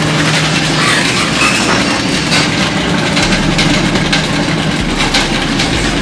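Steady mechanical hum with an even rushing noise from the pig barn's machinery, with scattered light clicks and knocks.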